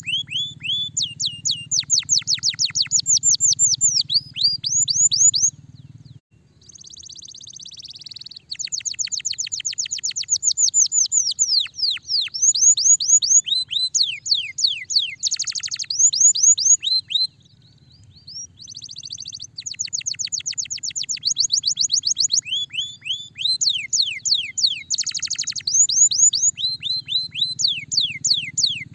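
Domestic canary singing: long rapid trills of repeated downward-sweeping notes, phrase after phrase with a few short breaks, over a faint low hum.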